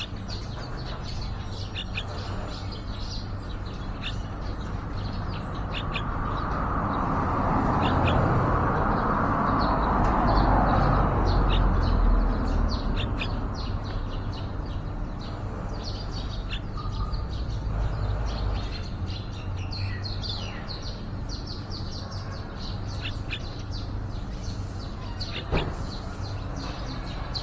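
Yellow-vented bulbuls giving short, high chirps, repeated all through, over a steady low background rumble. A broad rush of background noise swells louder for several seconds in the middle, and there is one sharp click near the end.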